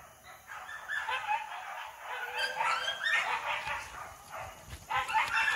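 Pig-hunting dogs yelping and barking in many short, high-pitched calls, sparse at first and busier from about two and a half seconds in.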